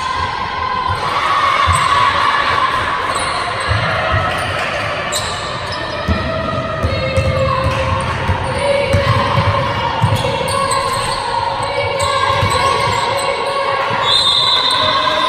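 Basketball bouncing on a hardwood court in irregular thumps during play, echoing in a large sports hall, with players' voices calling out.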